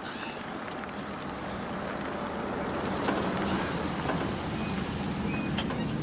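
Van engine running with tyre noise as it drives up the road, a steady rumble that grows slowly louder.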